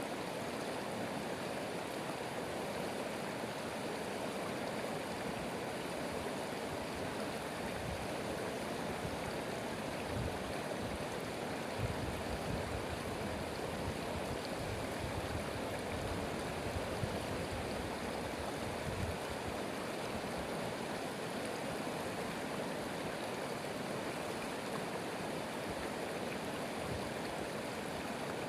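A stream running with a steady rush of water, with a few low gurgling surges in the middle.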